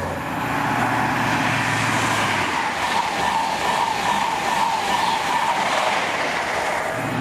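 Passenger train passing: steady rumble of wheels on rail with a faint high squeal through the middle.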